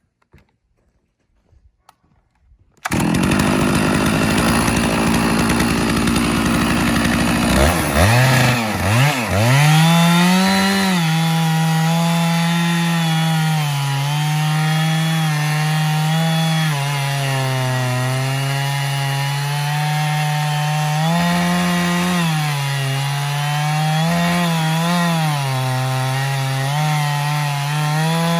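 Stihl 660 Magnum two-stroke chainsaw on an Alaskan chainsaw mill. It comes in suddenly about three seconds in after near silence, climbs to full throttle and rips lengthwise through a log, its pitch sagging and recovering under load. The chain has been dulled by striking a buried screw.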